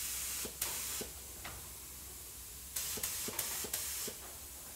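Air-fed gravity-cup paint spray gun hissing in short trigger pulls as it sprays black paint, set to a little air pressure with the paint flow turned down. Two bursts come in the first second, then four quick ones about three seconds in, each starting with a faint click.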